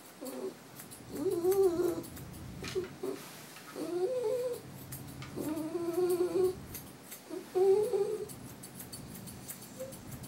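Muzzled dog whining and moaning in four drawn-out cries that waver in pitch, with faint clicks between them.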